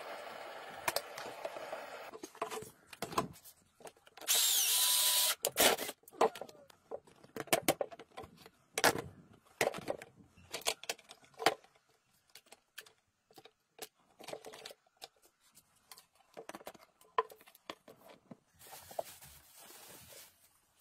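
Hard plastic being handled on a work surface: a string of separate clicks and knocks, with a short loud hiss about four seconds in. Near the end, a soft rustling hiss as loose soil is poured from a plastic bag into a plastic storage box.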